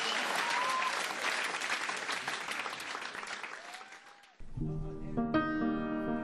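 Audience applauding, with a few short whistles, dying away. About four seconds in, a piano starts playing slow, sustained chords.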